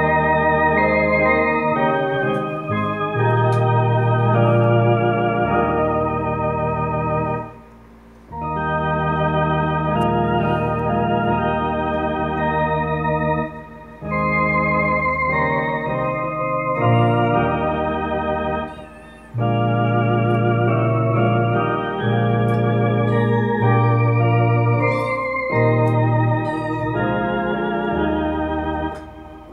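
Tokai D-2 two-manual electronic organ playing a slow hymn in held chords with vibrato over a steady bass line. The playing stops briefly between phrases, about 8, 14 and 19 seconds in.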